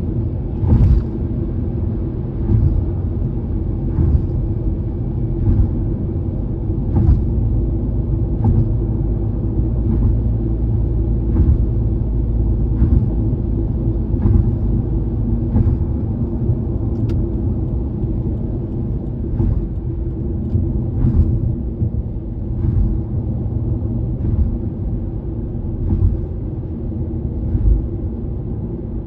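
Steady tyre and road rumble inside a car cruising on an elevated expressway. The tyres thump over bridge expansion joints about every one and a half seconds.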